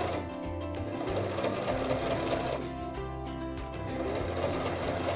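Electric sewing machine running steadily, stitching a long straight stitch as the fabric is turned to sew a curve. Background music plays under it.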